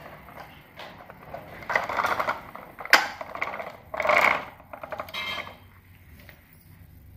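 Metal toy tractor and trailer being pushed across a tiled floor, its wheels and loose metal parts rattling and clattering in spells, with a sharp knock about three seconds in.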